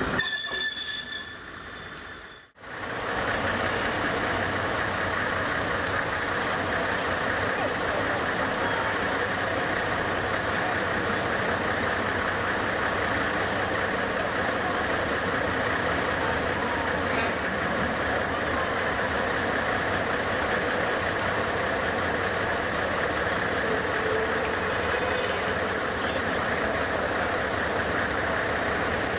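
Diesel locomotive CFL 1604, a 1955 NOHAB with a two-stroke V16 engine, running steadily as it slowly manoeuvres toward the listener. The sound comes in after a brief drop-out about two seconds in.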